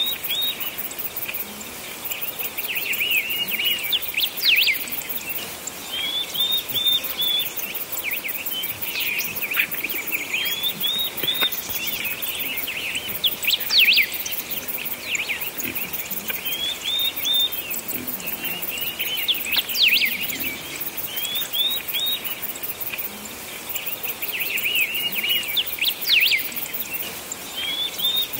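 Songbirds chirping and singing, one repeating a short, high phrase about every three to four seconds among scattered quick chirps.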